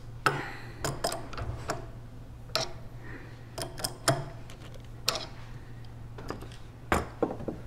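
Ratcheting wrench clicking in short, irregular runs as it is swung back and forth to unscrew a pressure washer's brass unloader valve from the pump's elbow fitting.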